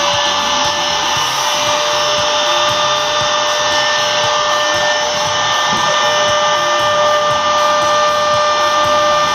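An electric power tool's motor running steadily under load, a constant high whine over a rushing noise.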